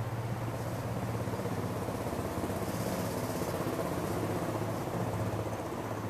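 Steady low drone over the city at night: a hum of a few held low notes with no clear beat or pitch change, under an even hiss that briefly grows brighter mid-way.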